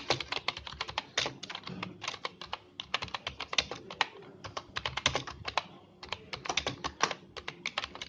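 Typing on a Redgear Blaze 3 membrane gaming keyboard: rapid runs of key clicks, with a short lull about six seconds in.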